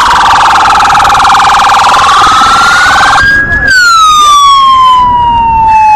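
Loud electronic police siren wailing, its pitch sliding slowly up and down. About three seconds in the tone turns smoother, then falls slowly.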